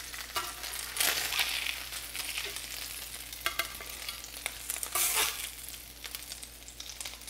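Butter and bacon grease sizzling steadily in a cast iron skillet as pan-fried walleye is lifted out, with a metal spatula scraping against the pan a few times, loudest about a second in and again about five seconds in.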